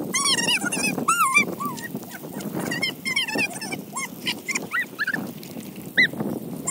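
Puppies whining and squealing in a rapid run of short, high-pitched calls, over the steady hiss of splash-pad sprinkler jets.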